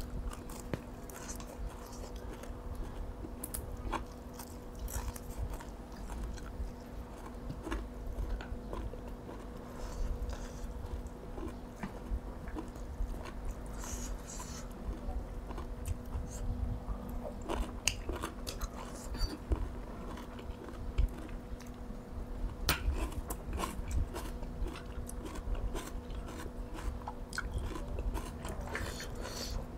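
A person chewing and crunching raw vegetables close to the microphone, with many small sharp mouth clicks and smacks. A steady low hum runs underneath.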